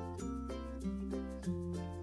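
Background music: a light melody of short, quick notes over held bass notes, which change twice.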